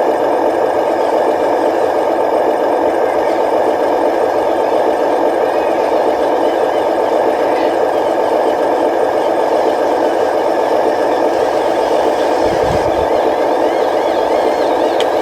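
Radio-controlled model construction machine running with a steady engine-like drone. A brief low thump comes near the end.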